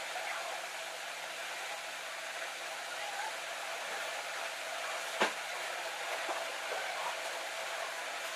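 Steady hiss, even and unbroken, with a single sharp click about five seconds in.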